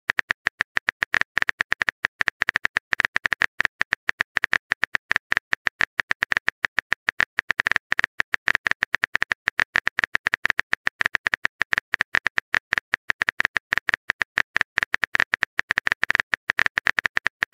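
Rapid phone-keyboard typing clicks from a texting app's sound effect, several taps a second, as the next chat message is typed.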